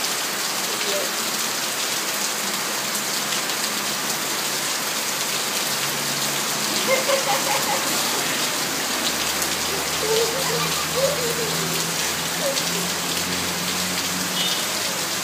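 Steady, heavy rain falling and splashing on tiled paving. A few brief voice sounds come through about halfway in.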